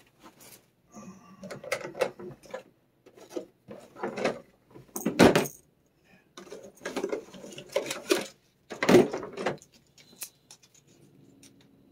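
Metal wire cage rattling and clinking as it is handled, in an irregular string of knocks and rattles, loudest about five and nine seconds in.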